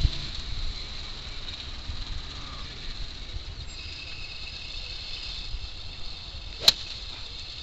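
One sharp click of a golf iron's clubhead striking at the bottom of a swing, about two-thirds of the way in. A steady high whine comes in around halfway and carries on underneath.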